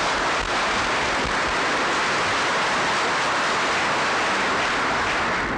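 Audience applauding steadily, welcoming a newly arrived guest; the applause dies away near the end.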